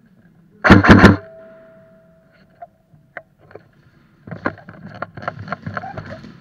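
Airsoft gun fired in a short, rapid burst of about four or five shots, a loud clatter about a second in. Later comes a run of softer, irregular clicks and knocks.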